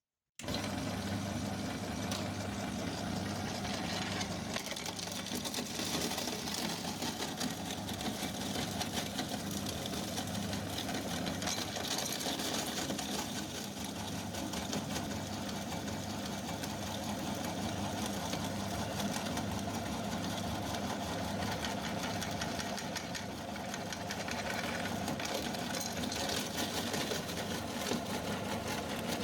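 Electric meat grinder starting abruptly and then running steadily, its motor humming under a dense crackle as it grinds hard candy lollipops.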